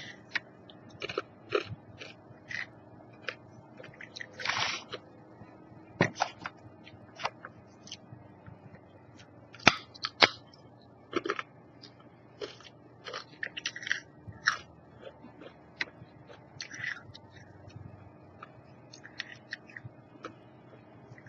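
A person biting into and chewing crunchy chips close to the microphone, with irregular, sharp crunches.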